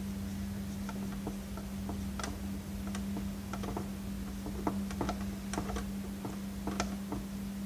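Irregular small clicks and taps of plastic vacuum-cleaner parts and a screwdriver being handled during disassembly, over a steady hum.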